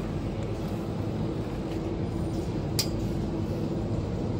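Steady low hum of refrigerated supermarket display cases, with a single brief click about three seconds in.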